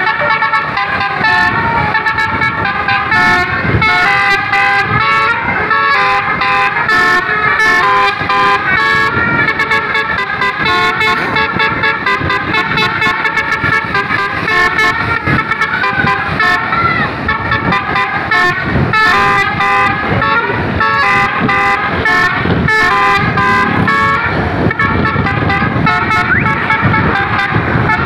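Bus 'telolet basuri' musical horn, a set of tuned horn trumpets playing a melody that jumps quickly from note to note without a break. A low rumble runs underneath.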